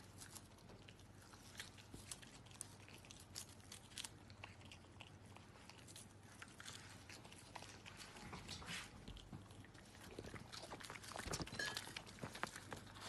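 Raccoon chewing and crunching food taken from a glass bowl. Quiet, irregular crunches and clicks, more frequent and louder in the last few seconds.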